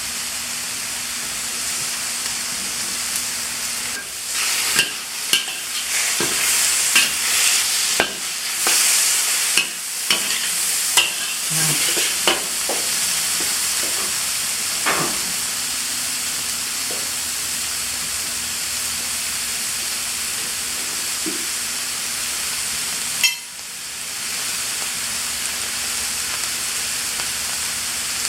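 Vegetables stir-frying in a hot pan with a steady sizzle, just sauced with oyster sauce. A spatula scrapes and knocks against the pan over several seconds near the start, and there is one more sharp knock later on.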